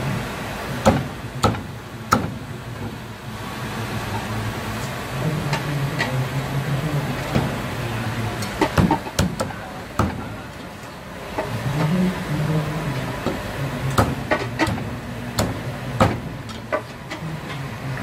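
Metal spoon clinking and scraping against a large aluminium basin and a plate as cooked food is scooped out, in many short sharp knocks. A low hum comes and goes underneath.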